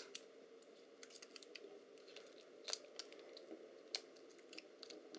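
Thin metal foil shielding being peeled back and crinkled by hand and tweezers: faint, scattered small crackles and clicks, a couple of sharper ones near the middle.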